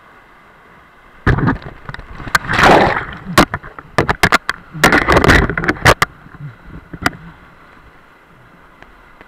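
Whitewater rapids rushing steadily, with a run of loud knocks and thumps against the body-worn camera starting about a second in and lasting some six seconds.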